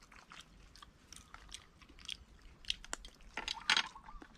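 Close chewing and small wet mouth clicks of someone eating a rice-paper roll of steamed fish, with a brief louder rustle about three and a half seconds in.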